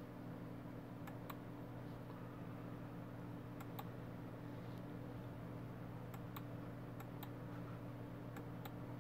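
Small sharp clicks, mostly in pairs a fraction of a second apart, about five pairs, over a steady low electrical hum. The clicks are typical of a push button being pressed and released.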